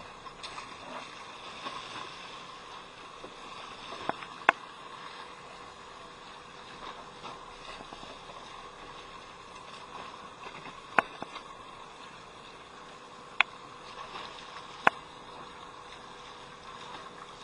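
Steady hum and water wash aboard a fishing boat, broken by a few sharp knocks: two close together about four seconds in, then three more spread through the later part.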